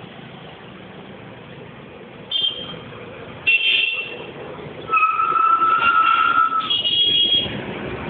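Vehicle horns honking over a low traffic rumble: two short toots, then a long steady horn lasting nearly two seconds, and another short toot near the end.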